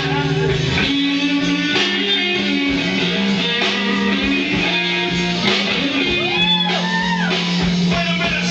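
Music led by guitar, with held notes and a melody note that bends up and back down twice near the end.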